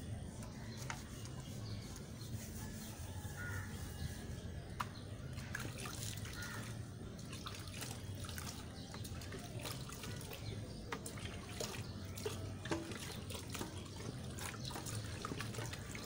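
A metal tray washed by hand over a bucket: water splashing, trickling and dripping, with scattered light clicks and clinks of the metal.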